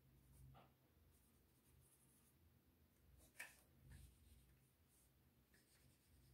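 Faint marker strokes on a whiteboard: a few short scratches, the clearest about three and a half seconds in.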